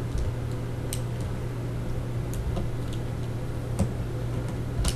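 A few faint, sharp clicks and ticks, about four, as a replacement laptop LCD panel and its connector are handled and fitted by hand, over a steady low hum.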